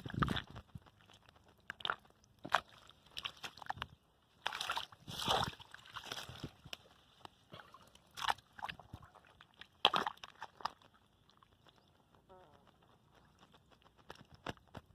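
Intermittent splashes and squelches of hands working through muddy water, in separate short bursts with quiet gaps between them, busiest in the first half.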